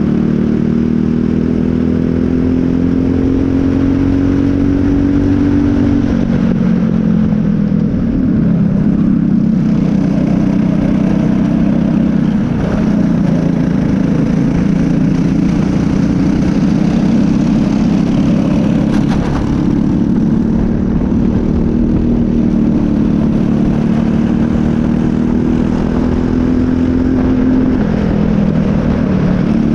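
Briggs & Stratton LO206 single-cylinder four-stroke kart engine running hard at race pace, its pitch climbing along the straights and dropping as the kart slows for corners, about six seconds in and again near the end.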